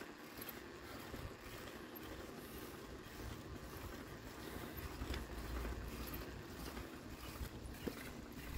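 Steady rolling noise of a bicycle being ridden along, with a few faint ticks and a low rumble that swells about five seconds in.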